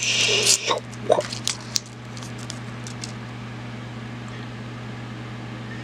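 A foil wrapper torn open and crinkled for about half a second, followed by a few light clicks and rustles of small plastic toy pieces being handled. After about two seconds only a steady low hum is left.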